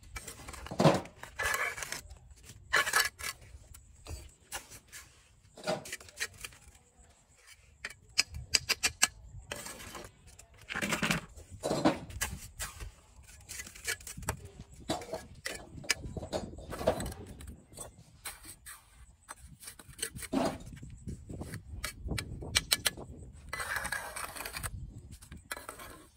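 Bricklaying sounds: a steel trowel scraping and scooping wet mortar from a metal bucket and spreading it on hollow clay bricks, with clinks and knocks as bricks are picked up and set in place. Irregular scrapes and taps with short pauses between them.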